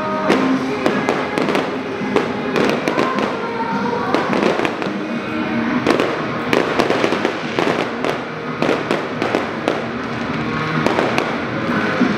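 Fireworks display going off: many sharp bangs and crackles in quick succession as shells and rising trails burst, with music playing underneath.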